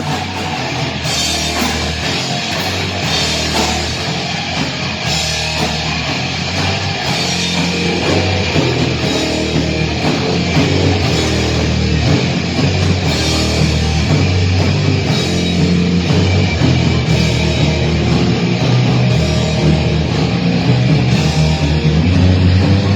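Live heavy metal band playing an instrumental passage: distorted electric guitars, bass and drum kit with cymbals, loud and without pauses.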